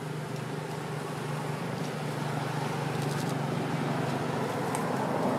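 Steady engine hum of a motor vehicle, growing gradually louder.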